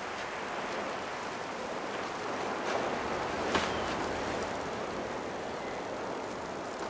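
Steady rushing of wind and surf from an oncoming storm, with a few faint ticks and one sharper click about halfway through.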